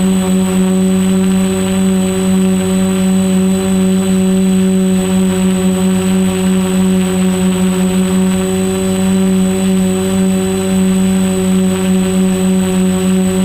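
Multirotor quadcopter's motors and propellers droning steadily, picked up by the onboard camera, a held pitch with overtones and no rise or fall.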